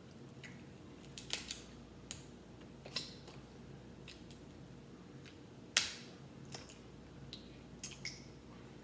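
Cooked crab leg shells cracking and snapping as they are broken and picked apart by hand. Scattered sharp cracks come one or a few at a time, the loudest about six seconds in.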